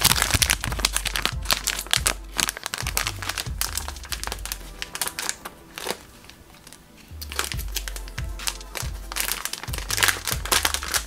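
Plastic gummy candy bag crinkling as it is shaken, handled and pulled open. Background music with a bass line plays underneath.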